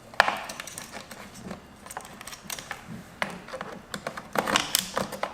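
Irregular plastic clicks, taps and knocks as a battery is worked loose and taken out of an HP G72 laptop, with a sharp knock near the start and a quick run of clicks near the end.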